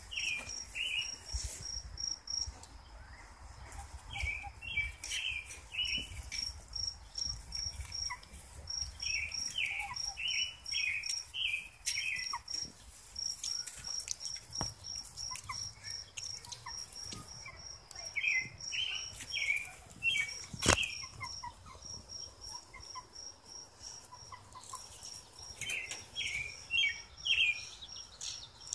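A cricket chirping in a steady high pulse, about three or four chirps a second, under recurring bursts of quick bird chirps every few seconds. A single sharp click about two-thirds of the way through.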